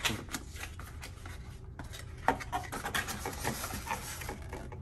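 Cardboard rubbing and scraping as a barometer is slid out of its white cardboard box, with scattered light taps and crackles and a sharper tap a little over two seconds in.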